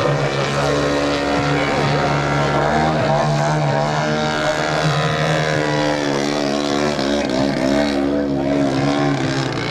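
Engine and propeller of a giant-scale (50%) Yak 54 radio-controlled aerobatic plane running hard through 3D manoeuvres. The pitch holds steady, then dips and rises several times in the second half as the throttle is worked.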